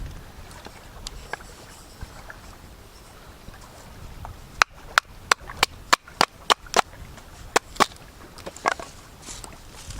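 A quick series of about ten sharp knocks, roughly three a second, starting about halfway through, with one softer knock a second later.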